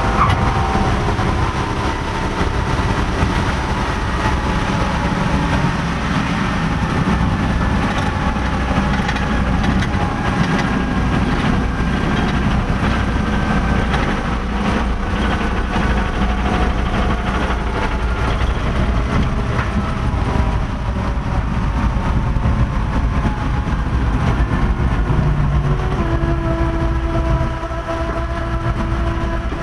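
Twin radial engines of a North American B-25 Mitchell bomber running with a steady, loud rumble, heard from inside the glazed nose as the aircraft rolls along the runway. The engine note changes a few seconds before the end.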